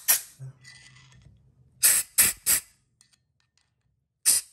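Short, sharp blasts of compressed air from a fine-tipped blow gun, fired into the fluid ports of a four-piston brake caliper to knock out debris. There is one blast at the start, three in quick succession about two seconds in, and another near the end.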